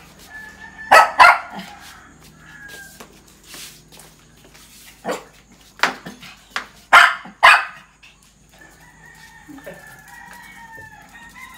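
Dogs barking at each other in play: about six short, sharp barks, mostly in pairs, spread through the first eight seconds. Later, a rooster crows quietly in the background.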